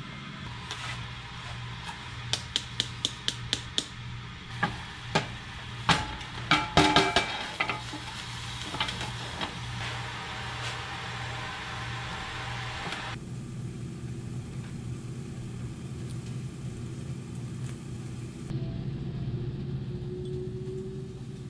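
Kitchen prep: a quick run of knife chops on a wooden cutting board, about five a second, then a few louder knocks. A steady hiss of food sautéing in a pan follows, over a low steady hum.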